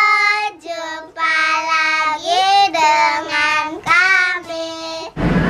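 Two children, a boy and a girl, singing together in long held notes that glide from one pitch to the next. The singing cuts off suddenly near the end.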